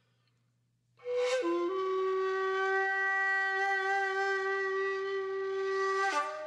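Background music: a woodwind instrument comes in about a second in, holds one long note, then moves to a higher note near the end.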